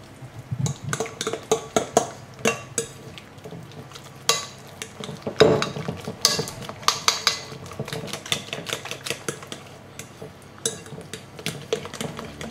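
A metal fork stirring wet cake batter in a glass bowl, with quick, irregular strokes that tap and scrape against the glass.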